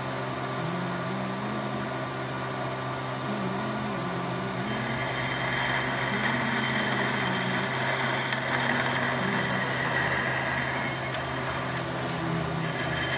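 Manual lathe running with a steady motor hum while a boring tool cuts the centre bore of a gear blank; the hiss of the cut comes in about five seconds in and carries on.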